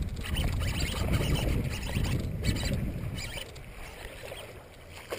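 A hooked largemouth bass splashing and thrashing in shallow, reedy water during the fight, over a low rumble that fades after the first half.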